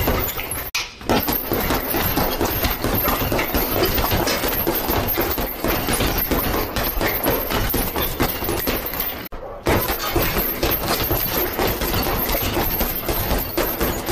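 Rapid, continuous flurry of boxing-glove punches thudding into a hanging leather heavy bag, breaking off briefly twice.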